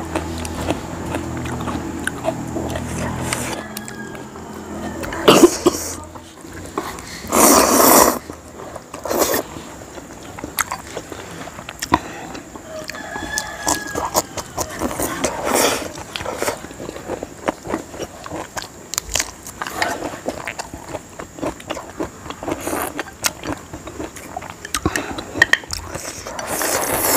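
Close-up eating sounds of momo and noodles: chewing and mouth smacks with many short clicks, broken by several louder slurps.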